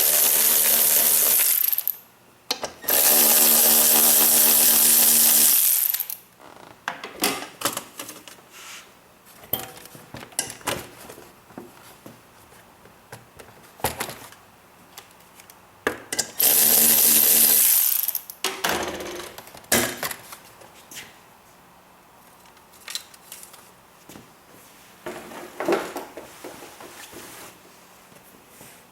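Handheld power tool running in three steady bursts, a couple of seconds each, as fasteners are worked in a car's engine bay. Between the bursts come scattered sharp clicks and knocks of tools and parts being handled.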